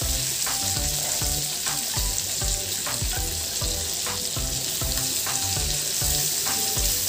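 Marinated chicken pieces sizzling steadily as they fry in oil and butter in a nonstick pan, while a spatula turns them over.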